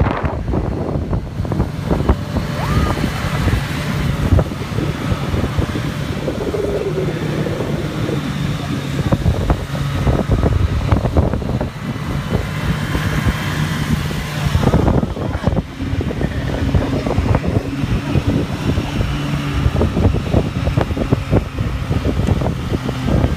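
Snowmobile engine running steadily as it tows an inflatable banana boat, under the rough rumble and frequent knocks of the boat sliding and bumping over snow and ice.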